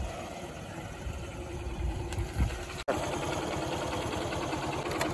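Hero motorcycle engine running as the bike rides up, then, after an abrupt break about three seconds in, idling close by.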